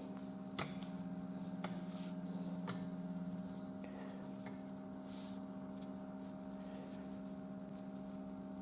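Light handling of a climbing carabiner and rope: three faint clicks about a second apart, with soft rustling, over a steady low hum.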